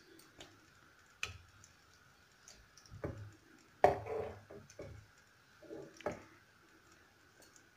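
Metal spoon clicking and scraping against a nonstick pan as chicken pieces and gravy are scooped out, in irregular sharp clicks and short scrapes, the loudest a few seconds in.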